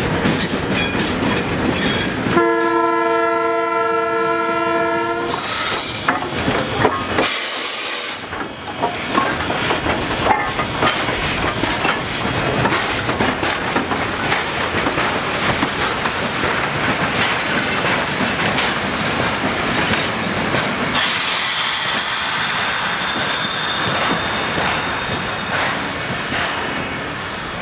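Trains passing on the rails: a diesel locomotive with freight wagons, then an SY-class 2-8-2 steam locomotive, with the wheels clicking over the rail joints. A train horn or whistle sounds for about three seconds a few seconds in, and there is a short sharp hiss a few seconds later.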